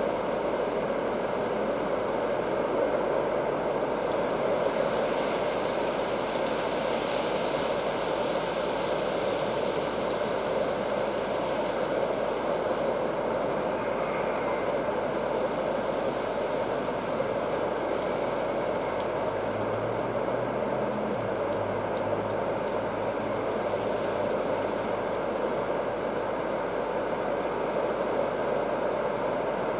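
Steady rushing noise with no distinct events, and a faint low hum for a few seconds about two-thirds of the way through.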